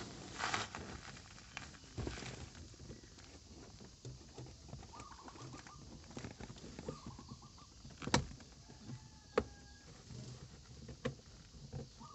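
Removed plastic interior trim being refitted by hand: scattered handling knocks and a few sharp snap-like clicks, the loudest about eight seconds in.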